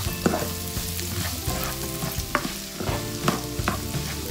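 Pork belly pieces and garlic sizzling in hot fat in a non-stick frying pan, stirred with a spatula that scrapes and knocks against the pan several times.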